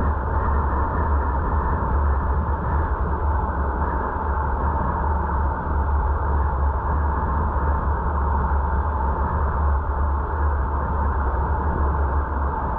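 Steady road and engine noise of a car driving at an even speed, picked up by a dashcam with a deep hum and a steady rush of wind and tyres.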